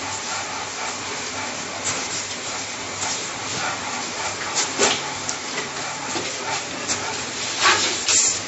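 Hands rubbing and rolling dampened semolina against a tray to form berkoukes grains: a steady gritty swishing, with louder sweeps about halfway through and again near the end.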